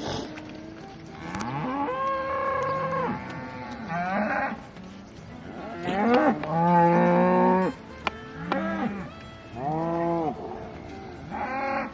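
Cattle mooing: about six drawn-out calls one after another, some overlapping, the loudest and longest about six seconds in.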